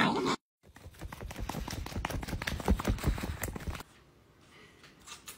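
A loud sound cut off abruptly at the start, then a quick, irregular run of light taps and clicks for about three seconds, then near silence.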